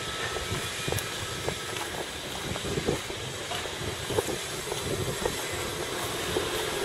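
Steady outdoor street noise: a constant hiss of distant road traffic, with a few faint scattered clicks.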